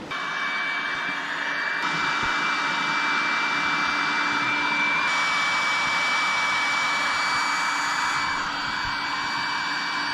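Small electric air pump running steadily with a high whine over a rushing of air, inflating a packraft. It starts abruptly, shifts slightly in pitch and level a few times, and runs without a break.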